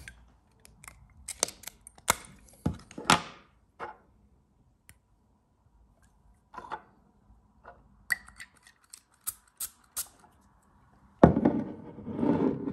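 Glass perfume bottle and its red cap being handled, with a scatter of sharp clicks and taps as the cap comes off. Near the end, a sudden louder knock, then a breathy sniff as the scent is smelled.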